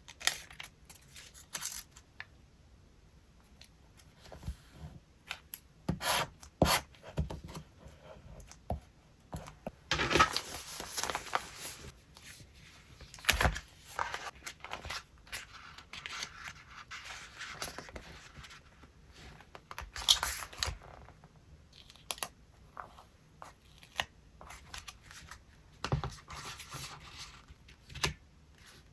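Paper collage materials handled at close range: irregular rustling and scraping with scattered light taps, and a longer spell of rustling about ten seconds in.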